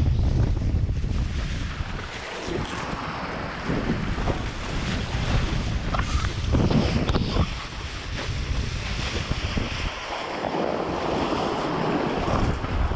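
Wind buffeting the microphone over the rushing hiss of water spray from a kiteboard planing across choppy water. The low rumble of the wind swells and eases with the gusts, heaviest at the start and again near the end.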